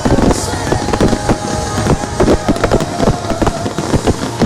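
Fireworks display: a dense, irregular barrage of sharp bangs and crackles, several a second.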